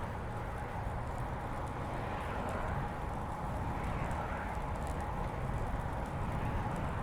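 Road bicycle riding along a paved bike path: steady rolling tyre noise and wind rumble, with a faint steady hum.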